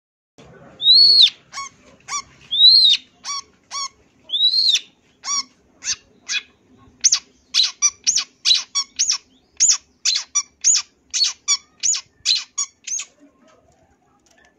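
Long-tailed shrike (cendet) singing: three high, arched whistled notes mixed with short sharp calls, then a quick run of short sharp notes, about three a second, that stops shortly before the end.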